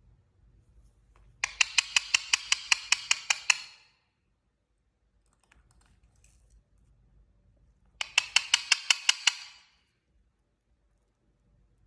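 A parrot giving a rapid pulsed call, a quick run of about six shrill pulses a second, twice: a longer run of about a dozen pulses, then a shorter one several seconds later.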